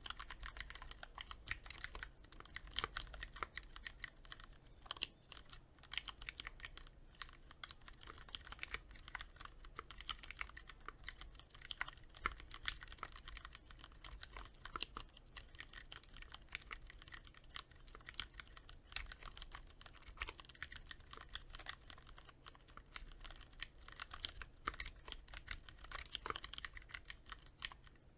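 Continuous typing on a Cherry MX Board 3.0S mechanical keyboard with Cherry MX Red linear switches, lightly lubricated with Krytox 105: a fast, uneven run of key clacks with a few louder strokes.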